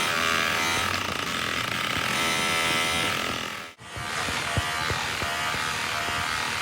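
Workshop machinery running steadily with a high pitched whine, cut off abruptly a little under four seconds in and replaced by a similar steady machine sound with scattered light clicks.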